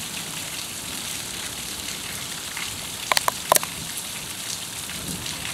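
Heavy summer rain falling steadily on the paved square and rooftops as an even hiss. A quick cluster of three or four sharp taps close by comes a little after three seconds in.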